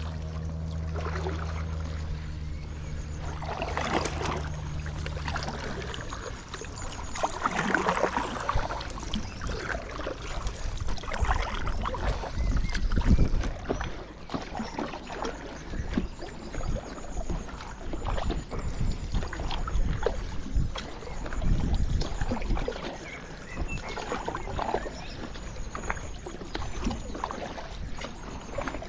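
Kayak paddle strokes: the blades dipping and splashing into the river with water running off them, in an irregular rhythm every second or two. A low steady hum sounds at first and stops about six seconds in.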